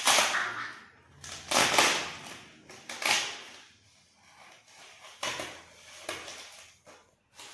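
Crinkling and rustling of a foil-lined insulated delivery pouch being pulled open by hand, in several separate bursts, the loudest in the first three seconds.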